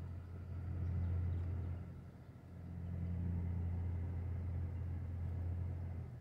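A low, steady motor rumble that swells twice and drops away abruptly at the end.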